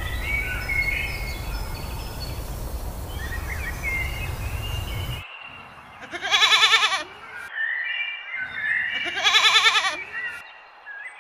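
Two loud animal calls, each about a second long with a quavering pitch, some three seconds apart. Before them a low rumble runs under faint bird chirps and stops about five seconds in.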